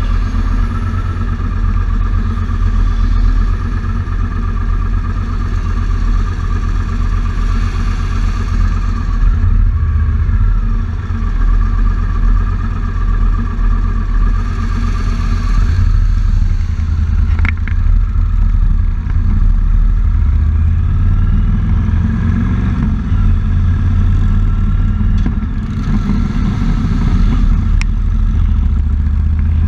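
Motorcycle engine idling with a steady low throb, then revving up with rising pitch as the bike pulls away about two-thirds of the way through, running on at road speed. A single sharp click near the middle.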